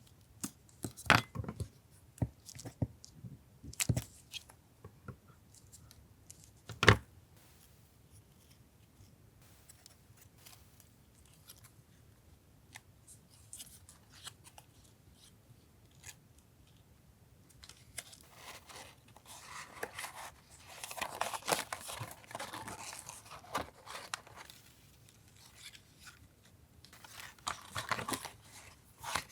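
Paper being cut and torn for a collage. Sharp separate snips and clicks come in the first seven seconds, the loudest near seven seconds. Longer rustling and tearing of paper follows from about eighteen seconds in.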